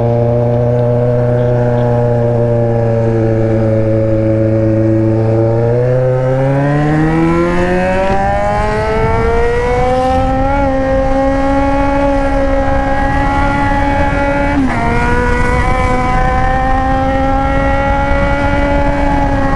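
Yamaha XJ6's inline-four running through an aftermarket Atalla exhaust. It holds a steady note, then rises in pitch as the bike accelerates from about six seconds in, and settles to a higher steady note with one brief dip in pitch. Wind rush grows as the speed builds.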